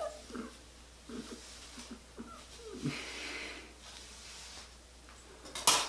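Quiet handling sounds of long straightened hair being combed straight back and gathered by hand, with a soft breath about three seconds in and a short, sharp rustle near the end.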